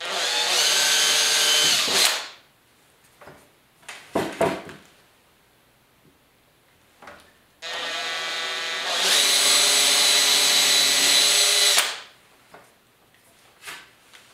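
Cordless drill boring pilot holes into epoxy-and-fiberglass-filled particle board: a short run of about two seconds, then a longer run of about four seconds that speeds up partway through. A few brief knocks come between the two runs.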